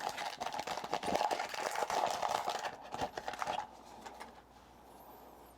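Foil wrapper of a Topps Chrome trading-card pack crinkling and rustling as it is handled and opened. The sound is dense for about three and a half seconds, then drops to faint handling.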